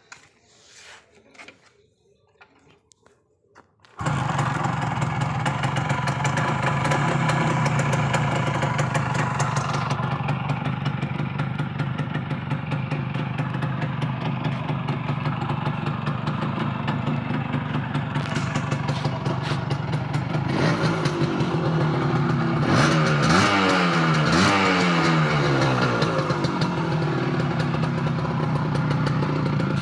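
A refitted Kawasaki KB100's two-stroke single-cylinder engine running. It comes in suddenly about four seconds in and runs steadily, then is revved up and down several times in quick succession a little past the middle.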